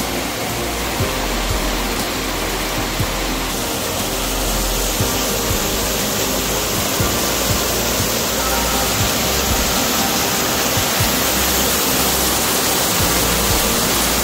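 Small waterfalls on a mountain stream pouring over rocks: a steady rush of falling water.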